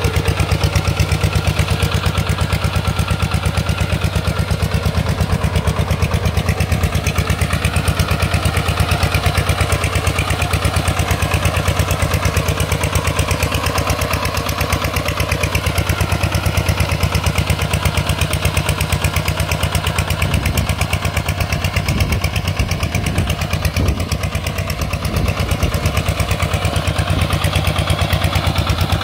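Single-cylinder diesel engine of a Kubota RT140 Plus–powered hand tractor running steadily, with fast, even firing pulses; the low engine sound wavers briefly about two-thirds of the way through.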